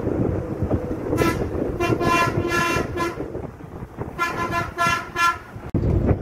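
Bus horn honking in two runs of quick repeated toots, about four or five short blasts each, over the bus's engine and road noise.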